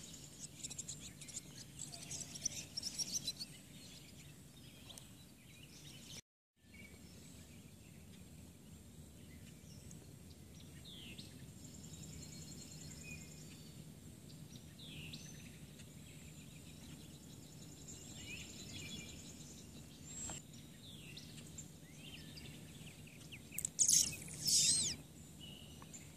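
Birds chirping and calling over a steady low hum, with a brief dropout about six seconds in. Near the end come two loud calls that sweep up and down in pitch.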